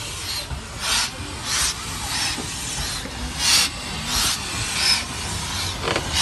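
Ivatt Class 2 2-6-2T steam tank locomotive No. 41313 chuffing slowly past. Its exhaust beats come a little under two a second, alternating louder and softer, over a steady hiss of steam.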